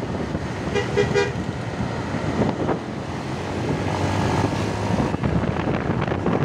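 A vehicle horn gives three quick two-tone toots about a second in, over steady road traffic and engine noise.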